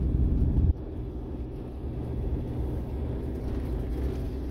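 Motorhome engine and road noise heard from inside the cab while pulling up a steep climb. The level drops suddenly under a second in, then stays steady and lower.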